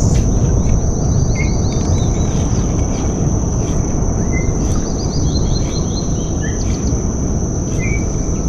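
Mangrove ambience: a steady high insect whine and a bird giving two descending runs of short chirps, over a steady low rumble.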